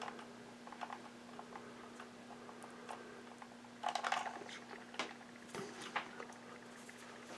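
Faint small clicks and rustles of wires being handled and joined by hand, with a short burst of scratchy rustling about four seconds in. A low steady hum runs underneath.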